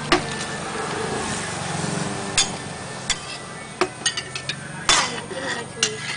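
Metal noodle strainer knocking and clinking against the rim and sides of an aluminium cooking pot: about ten sharp, irregular knocks, more of them in the second half.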